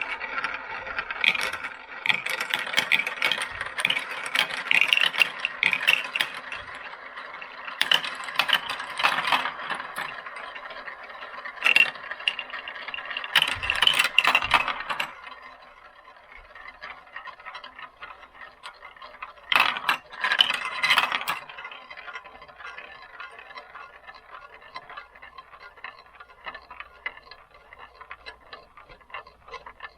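Many marbles rolling and clattering down a marble run, spinning round and down its triple spin, with a dense stream of clicks over a steady rolling rattle. It thins out about halfway through into quieter rolling, with a short loud burst of clatter around twenty seconds in.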